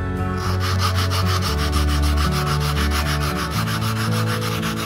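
Sandpaper wrapped around a PVC pipe sanding the edge of a carved wooden lure blank by hand: quick, even rubbing strokes, several a second, starting about half a second in.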